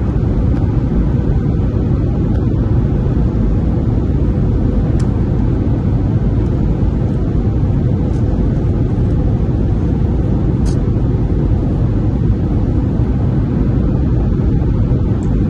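Steady low rumble of a jet airliner's cabin in flight, the turbofan engine and airflow heard from a window seat.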